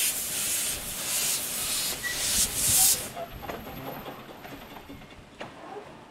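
Small miniature-gauge steam locomotive blowing off a loud hiss of steam from its cylinder drain cocks as it moves off, surging a few times and stopping about three seconds in. A few faint clicks follow.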